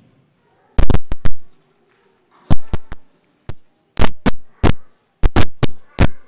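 Close-miked clinks and knocks of altar vessels being handled and set down on the altar, as in the purification of the chalice and vessels after Communion: about fifteen sharp strikes in irregular clusters, with faint ringing between them.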